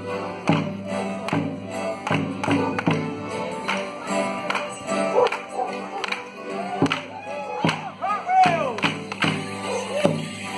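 Border Morris dance: a folk band playing a tune with a steady beat while the dancers strike wooden sticks together, sharp clacks about two to three times a second.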